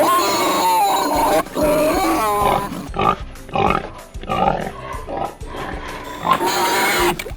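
A pig making a string of short calls, with high wavering squeals in the first couple of seconds, over background music.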